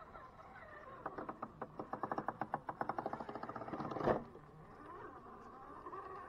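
Small electric RC crawler, a stock Element Enduro Sendero HD with a brushed 540 motor, working over rock with a faint motor whine. A fast run of even clicks begins about a second in and lasts about three seconds. A single loud knock follows as the truck passes close by.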